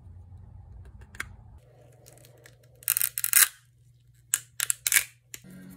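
Resin 3D-print support structures being snapped and peeled off a printed sphere by hand: two loud clusters of crackling snaps, about three seconds in and again at about four and a half seconds.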